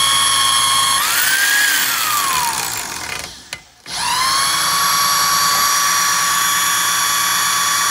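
Corded electric drill spinning a small wind generator's shaft, a steady high motor whine at about 1,660 rpm. About a second in the whine briefly rises, then winds down and nearly stops, with a click. Then it spins back up to a steady whine a little higher than before, as the drill's speed is stepped up for the next power reading.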